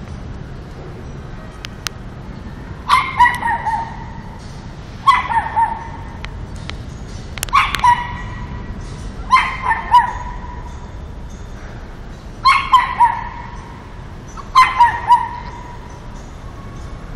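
Teacup poodle yapping at a cat: six bursts of two to four quick, high yaps, each dipping slightly in pitch, about two seconds apart.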